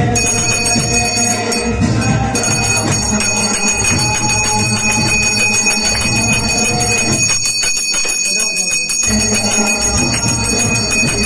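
Puja bells ringing fast and continuously, a dense clanging that holds steady high tones over music. The music underneath drops away for a moment about seven seconds in while the bells keep ringing.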